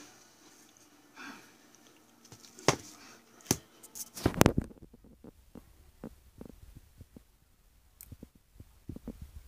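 Handling noises from a shrink-wrapped Blu-ray and graphic novel package: a few sharp knocks as it is laid on a table, the loudest about four seconds in, then a run of light ticks and taps while a small pocket cutter is picked up.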